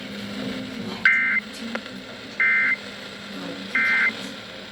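NOAA Weather Radio SAME end-of-message code: three short two-tone data bursts, each about a third of a second long and a little over a second apart, marking the end of the alert. A steady low hum from the radio runs underneath.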